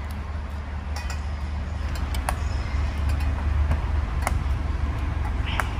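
Low rumble of wind on the microphone, with a few light clinks of spoons and dishes.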